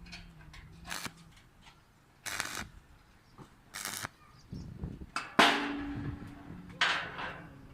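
A series of sharp metal knocks and clangs, about six strikes spread unevenly. The loudest comes about five and a half seconds in and rings briefly, like struck steel.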